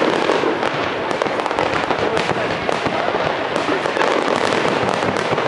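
Aerial fireworks display: many shells bursting in quick succession amid dense, unbroken crackling.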